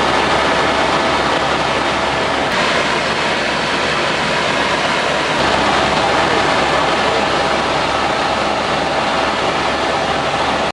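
Helicopter cabin noise in flight: the steady rotor and turbine rush with a faint constant whine, changing slightly in tone about two and a half seconds and five seconds in.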